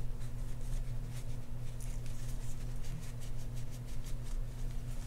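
Paper shop towel rubbing and rustling against a fishing reel's metal frame as old grease is wiped off, a run of short scratchy strokes. A steady low hum sits underneath.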